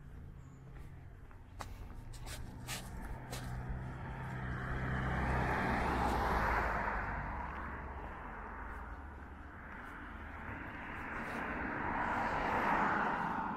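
Two cars passing one after the other, the tyre and engine noise swelling and fading. The first is loudest about six seconds in, the second near the end.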